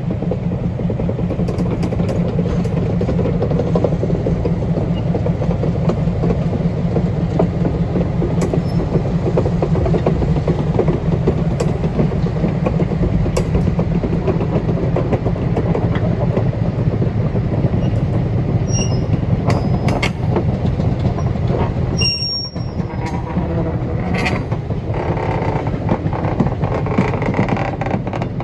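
A railroad car rolling slowly on track, with a steady low engine rumble from the equipment moving it, wheels and rail joints clicking, and a few brief high wheel squeals about two-thirds of the way through.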